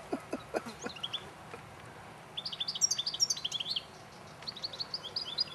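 European goldfinches twittering in two quick runs of high, rapid chirps, one about two seconds in and another from about four and a half seconds on. A few soft footsteps on dry ground sound in the first second.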